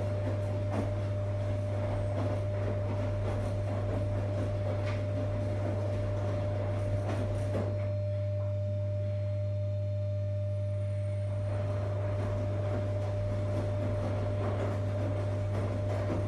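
Primus RS16 front-loading commercial washer running a wash cycle: a steady low motor hum with a thin steady whine, and soft knocks and swishing of clothes tumbling in the drum. The tumbling sounds stop for about four seconds midway while the hum carries on, then start again.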